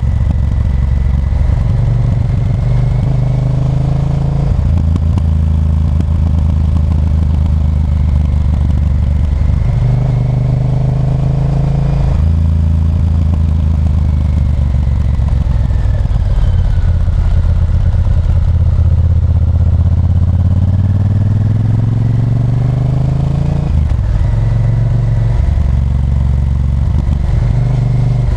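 Honda Varadero 1000's V-twin engine pulling under way. Its pitch climbs, then drops suddenly three times as it changes gear, the last climb long and slow.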